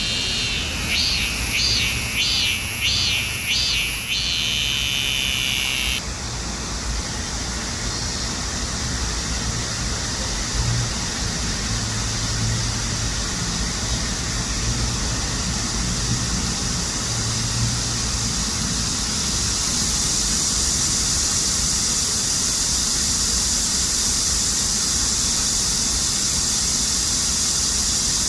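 Cicadas singing. One close cicada gives a rapidly pulsing song, about two pulses a second, then cuts off suddenly about six seconds in. A steady, high-pitched chorus of cicadas carries on and grows louder about twenty seconds in.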